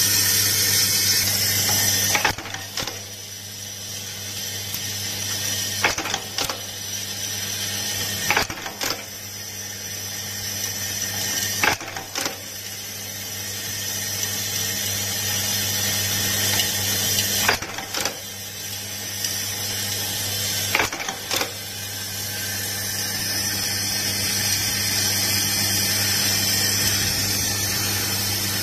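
Automatic-feeding rivet machine at work: its vibratory bowl feeder hums steadily with the rivets rattling, and the riveting head sets rivets into a metal keyboard plate with sharp clunks every few seconds, mostly in quick pairs.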